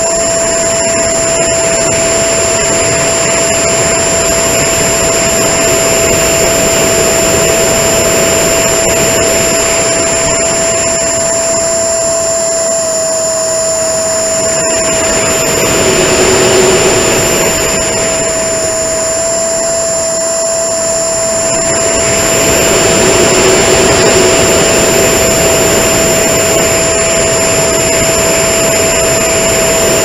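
Electric ducted fan of a small RC foam jet running at a steady whine, picked up by a camera slung under the fuselage, with heavy air rush over the microphone. The rush swells twice, about halfway through and again a few seconds later.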